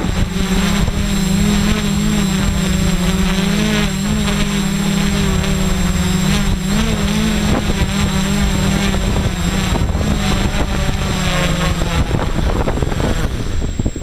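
DJI F550 hexacopter's six motors and propellers hovering, heard from a camera on the frame: a loud, steady hum whose pitch wavers slightly as the motors adjust, dropping away near the end.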